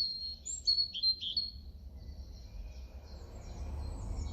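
European robin singing: a high, warbling phrase of quick, varied notes in the first second and a half, then thinner, fainter notes, over a low background rumble.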